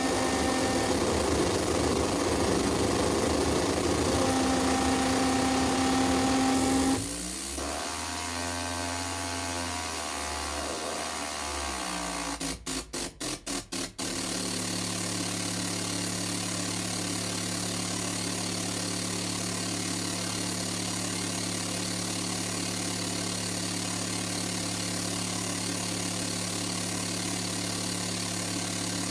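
Electronic noise music played live. A dense wall of noise with held tones cuts out about seven seconds in to a thinner sound whose pitch sweeps and phases. After a quick run of stutters, it settles into a steady low drone.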